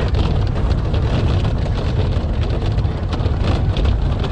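Cabin noise inside a moving minibus: a steady low engine and road rumble, with the body and windows giving many small rattles.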